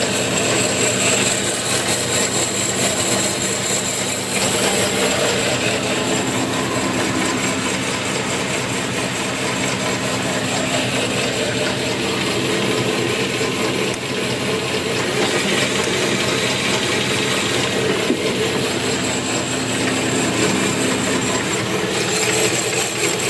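Jet J-7015 8" x 13" horizontal bandsaw running without cutting: its 1.5 hp single-phase motor drives the blade through a belt drive. It makes a steady hum with a hiss above it and does not change.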